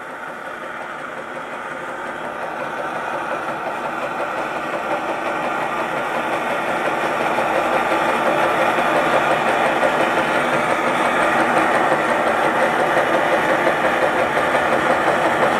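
Robinson hot-air engine running with its gas burner lit: a steady hissing from the burner under a fast, light mechanical clatter from the engine. It grows gradually louder.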